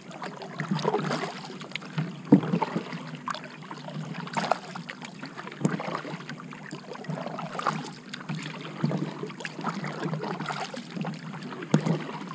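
Double-bladed kayak paddle stroking on alternate sides: blades dipping and splashing in the water with drips running off, with a few sharper knocks among the strokes.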